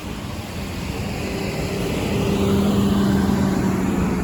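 Road traffic on a wet street: a vehicle's engine drone growing louder as it approaches, over a steady hiss of tyres on the road.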